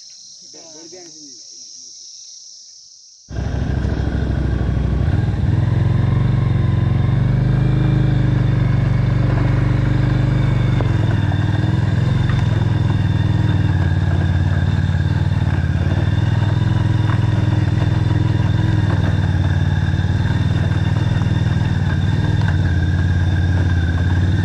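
A faint high insect drone for about three seconds, then an abrupt cut to a motorcycle engine running steadily at road speed, loud and low.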